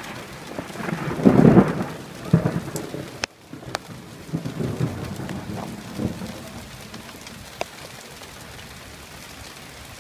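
Thunder rumbling over steady rain. It builds to a loud peak about a second and a half in, then rolls on in weaker rumbles that die away by about six seconds, leaving rain hissing and pattering on surfaces with a few sharp drip ticks.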